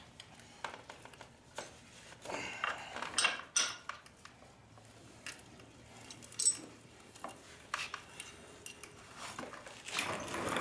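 Metal hand tools and motorcycle axle hardware clinking and clattering: scattered sharp metallic clinks, with louder ones about three seconds and six and a half seconds in.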